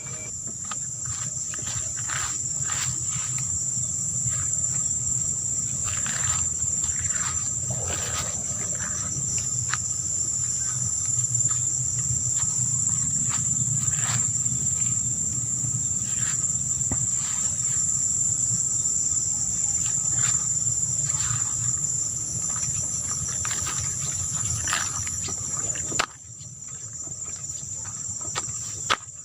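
Crickets chirping in one steady, high, unbroken trill over a low rumble. Near the end the sound drops abruptly with a sharp click.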